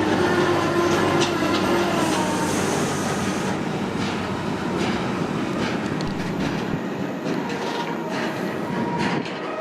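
A train running along the track, wheels clattering over the rails with a steady low hum and a few faint high tones. The noise slowly dies away.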